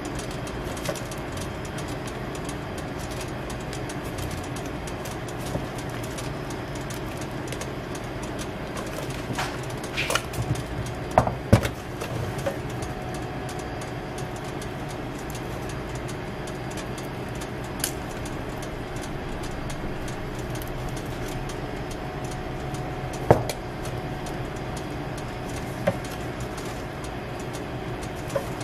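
Steady low machine hum of shop ambience, with a few short sharp clicks and taps, a cluster about ten seconds in and single ones later, as toppings and a spoon touch the crepe on its metal tray.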